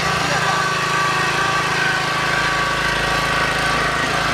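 Engine of an earth auger drill machine running steadily at an even speed.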